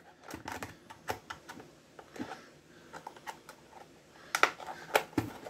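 A spudger prying at the seam of a plastic toy's casing: small irregular clicks and scrapes of the tool working against the plastic, with a few louder sharp snaps near the end.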